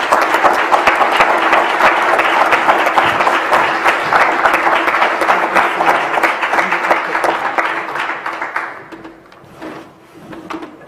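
Audience applauding: dense clapping that thins out and fades about nine seconds in, leaving a few scattered claps.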